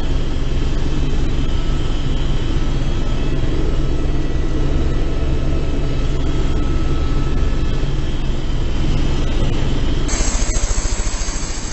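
Helicopter in flight heard from inside: a loud steady drone with a few thin high whining tones over it. About ten seconds in the sound changes suddenly to a hiss with a fast low beating.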